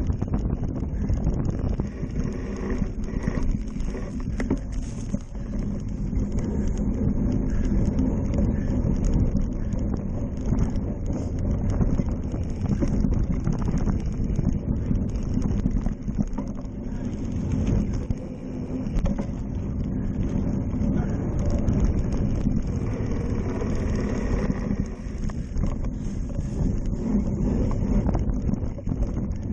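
Wind buffeting the microphone of a handlebar-mounted camera, with a cyclocross bike's tyres rumbling over a dirt and leaf course and frequent small knocks and rattles as the bike runs over rough ground.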